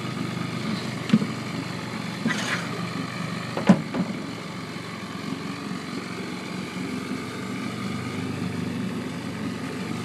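An engine idling steadily, with a few sharp knocks, the loudest about four seconds in.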